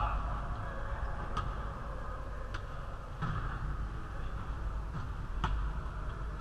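A basketball striking a hard gym floor: about five sharp, echoing bangs at uneven intervals, the strongest near the end. A steady low hum runs under them.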